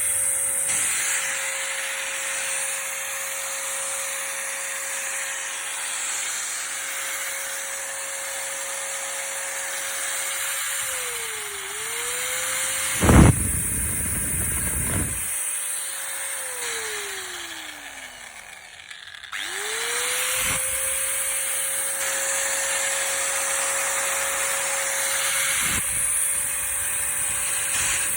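Bosch electric power tool motor running at steady full speed. It dips briefly in speed as if loaded, with a sharp knock about thirteen seconds in, then winds down to a stop after it is switched off. It is switched on again and spins back up to full speed.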